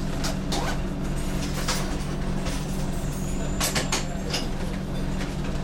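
Diesel multiple unit's underfloor diesel engine running steadily, heard from the cab, with scattered clicks and knocks over the drone.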